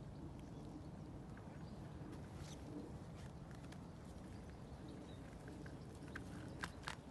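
A dog's claws clicking and tapping on the thin ice of a frozen puddle as it walks, with two sharper clicks near the end, over a low steady rumble.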